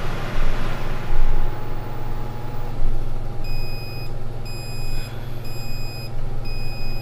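Bluetti AC200P power station beeping its overload alarm, a high beep about once a second starting about halfway in, after the surge from an RV air conditioner's compressor trips its inverter output to zero. A steady low hum runs underneath.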